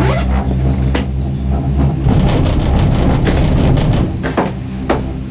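Genting Skyway gondola cabin running along its cable with a steady low rumble. About two seconds in, a rapid rattling clatter starts and lasts about two seconds, with a few single knocks around it.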